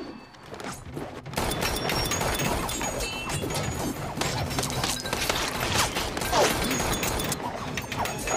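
Action-film fight sound mix: gunshots, hits and crashes in quick succession, starting about a second in, with a film score underneath.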